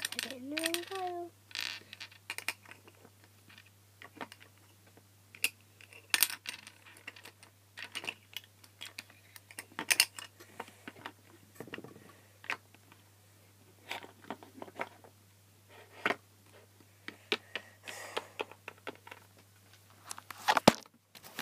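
Small plastic toys being handled and set down on a wooden toy shelf: irregular light clicks, taps and rattles, with a louder knock near the end.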